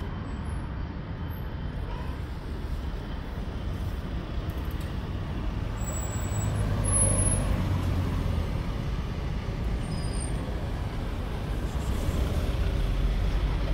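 Steady low rumble of road traffic, swelling about seven seconds in and again near the end.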